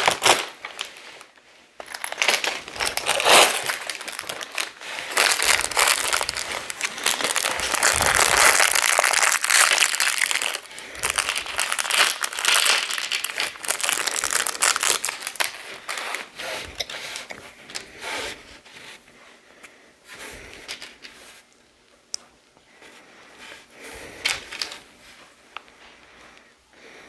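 Crinkling of LEGO advent calendar packaging being handled and opened, dense for about the first half, then thinning to quieter scattered clicks.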